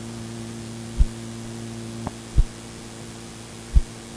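Steady electrical hum with a faint hiss from an old sermon recording, during a pause in the talk. Three short, low thumps fall at a regular pace, about one every second and a half, with a small click between the first two.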